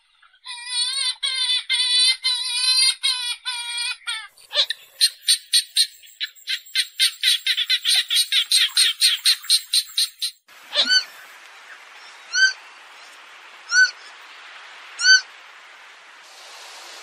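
Purple gallinule calling: a quick run of nasal, wavering cackling notes, then a faster train of short clipped notes. After a break come four single sharp call notes over a second apart, against a faint hiss.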